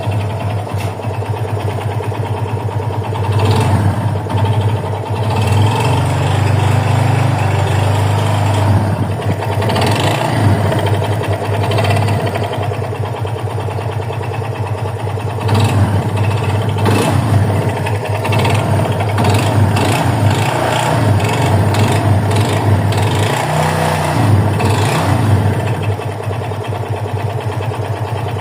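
Yamaha FZ25's single-cylinder air-cooled engine running, its pitch rising briefly a couple of times. The owner is unsure whether the noise it makes is normal or a fault.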